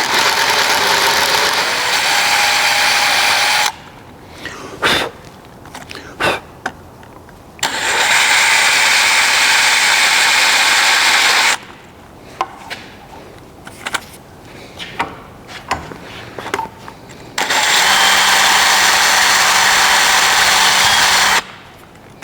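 Power drill with a 3/8-inch bit boring a half-inch-deep hole for a threaded insert, running in three steady bursts of about four seconds each with a fixed whine, with short clicks and knocks in the pauses between.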